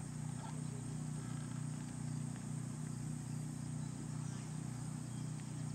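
Faint outdoor background: a steady low hum over an even hiss, with no distinct hoofbeats.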